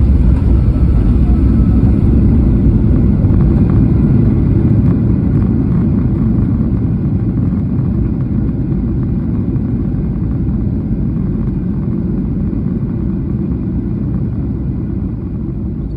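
Cabin rumble of a Boeing 737-800 rolling out on the runway just after touchdown. The CFM56 engines and the wheels on the runway make a loud, deep rumble that fades gradually as the jet slows.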